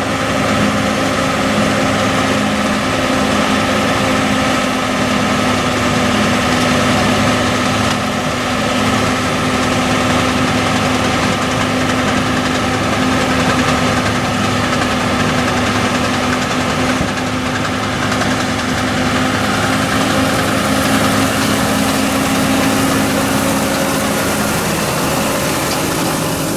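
Tractor engine and PTO-driven round baler running at a steady pitch while standing still, as the baler ties the finished bale.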